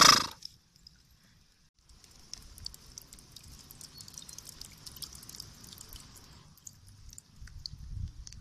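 A short loud burst right at the start, then rain falling, with a steady hiss and many fine drip ticks. Low rumbling sounds begin near the end.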